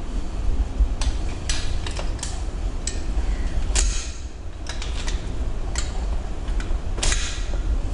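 Irregular sharp metallic clicks and ticks of a small hand tool and parts knocking against a mountain bike frame during assembly, over a steady low rumble.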